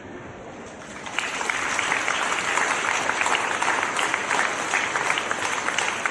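A crowd clapping, starting about a second in and carrying on steadily.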